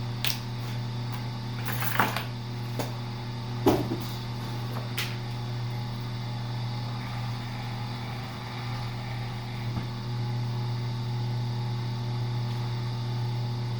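Steady low electrical hum, with a few sharp clicks and knocks during the first five seconds.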